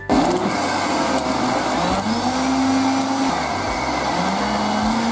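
Electric countertop blender running, blending milk with banana, dates and almonds; it starts suddenly, and its whir wavers in pitch a couple of times as the thick drink churns.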